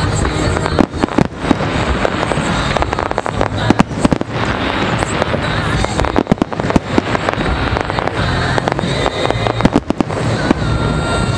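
Large aerial fireworks shells bursting: many sharp bangs in quick succession over a continuous rumble.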